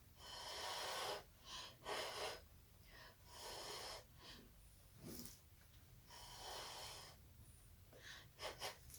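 About five short puffs of air blown by mouth, each under about a second, with quiet gaps between.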